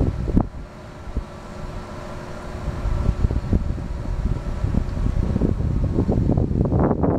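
Wind buffeting the microphone in uneven gusts over a faint steady machinery hum from the ship. The gusts grow stronger near the end.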